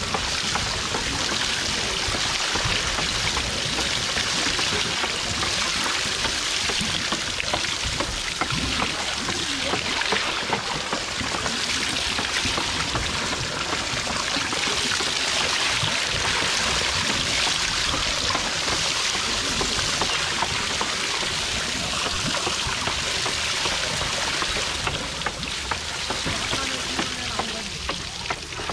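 Water pouring and splashing steadily from the clay pots of a bullock-driven Persian wheel into its wooden trough. The water noise eases off slightly near the end.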